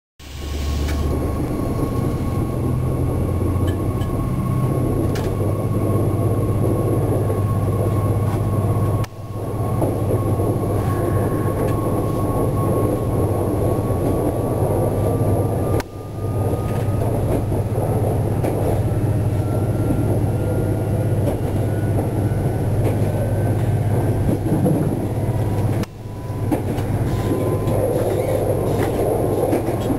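Bombardier B 82500 (AGC) railcar under way in diesel mode, heard from inside the driver's cab: a steady engine drone over rumbling wheel and track noise. A faint whine rises slowly in pitch about halfway through. The sound drops out briefly three times.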